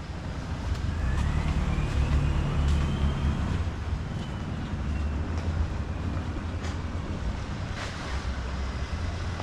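Low, steady vehicle engine rumble, with a faint high whine that rises about a second in and then slowly fades.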